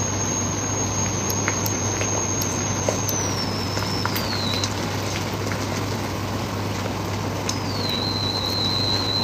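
Steady sizzling of food frying in a pan on an induction hob, under a low steady hum and a faint high whine that drops in pitch twice, with a few light clicks of stirring.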